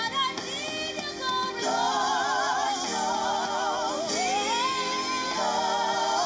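Female gospel singer holding and bending long notes with heavy vibrato over held backing chords, played back through laptop speakers.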